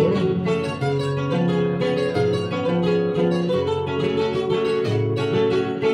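Acoustic guitar playing an instrumental interlude between sung verses of an Argentine folk song: a quick plucked melody over a moving bass line.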